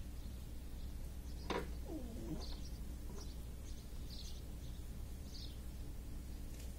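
Small birds chirping in the background, a short high chirp every second or so. About one and a half seconds in, a click, then one low cooing call.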